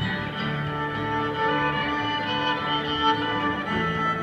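Live acoustic bluegrass band playing an instrumental break, with the fiddle leading over acoustic guitar, banjo, mandolin and upright bass.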